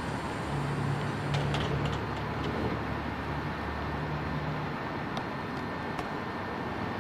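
Electric commuter train standing at a platform: a steady low hum from its equipment, with a few short clicks and knocks about one and a half to two and a half seconds in as its doors close.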